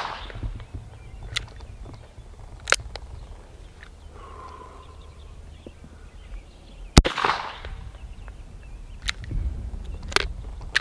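Korth NXS .357 Magnum revolver: the echo of a shot fades at the start, then one loud shot about seven seconds in, its report trailing off. A few fainter sharp clicks come between the shots.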